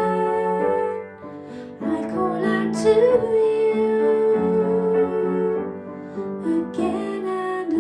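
Music: a slow song with singing over piano accompaniment, briefly quieter about a second in.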